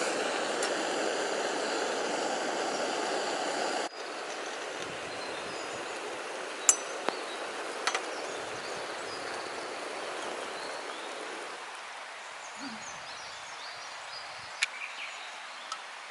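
A loud steady rushing noise that cuts off abruptly about four seconds in, then a quieter campfire-side background with a few scattered sharp pops.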